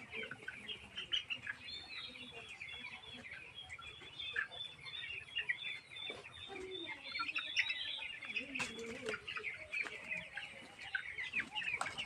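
A flock of 18-day-old chicks peeping, many short high chirps overlapping without a break, with a few lower calls around the middle.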